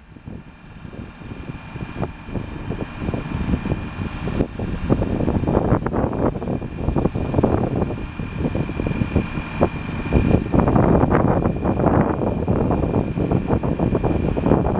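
Ford F550 bucket truck running with its Altec AT35G aerial boom in normal operation, raising and extending. There is a steady, rough engine-and-hydraulic drone with a thin high whine, and it grows louder over the first few seconds.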